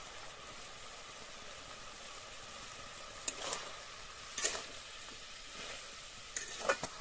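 Chicken curry sizzling in a steel kadai, a steady hiss, while a metal spatula scrapes and clinks against the pan a few times in the second half.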